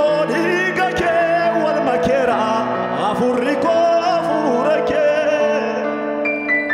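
A man sings a long, wavering gospel line with vibrato in Afaan Oromo into a microphone over steady held instrumental chords; near the end his voice drops out and the accompaniment carries on.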